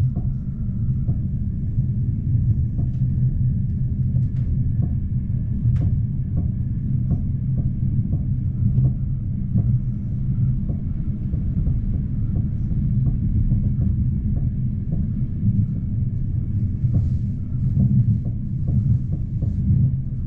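Steady low rumble of a VR commuter electric train running, heard from inside the carriage, with faint regular clicks a couple of times a second.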